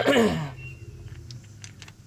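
A brief vocal sound, then faint light clicks of small metal parts being handled as the carburetor float-bowl screws are fitted.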